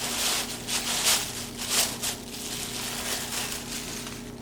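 Packaging being handled and opened: a run of crinkling, rustling bursts, the loudest in the first two seconds, then quieter handling toward the end.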